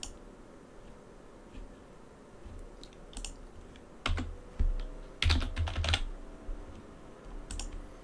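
Computer keyboard being typed on in short, scattered bursts of keystrokes, busiest a little past the middle.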